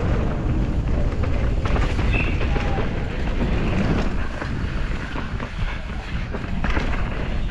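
Wind buffeting the microphone as a low rumble, with scattered clicks and knocks, easing for a couple of seconds just after the middle.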